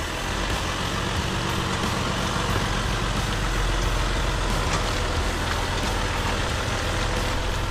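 Off-road Jeep on large mud-terrain tyres crawling slowly along a muddy forest trail. Its engine runs low and steady under a wash of tyre and trail noise, with a few faint clicks.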